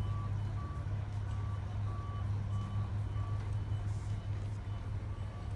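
A series of short electronic beeps, about three every two seconds, fading out a little past halfway, over a steady low engine hum.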